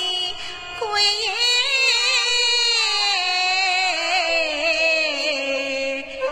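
Huangmei opera singing: one sustained, melodic sung phrase whose pitch wavers and glides between held notes.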